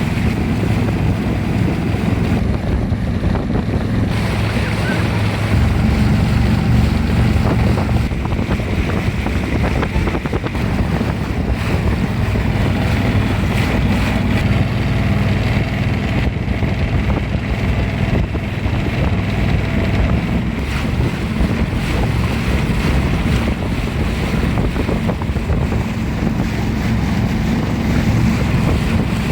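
Steady low rumble of a boat under way on the water, with wind buffeting the microphone.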